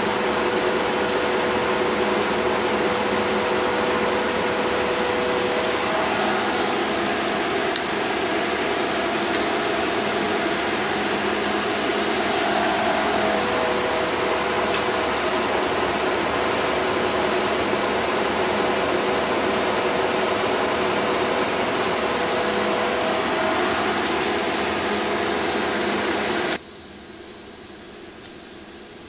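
Bullard Cutmaster 42 vertical turret lathe running with its table turning: a loud, steady mechanical whir with humming tones. Near the end the noise drops suddenly to a much quieter hum.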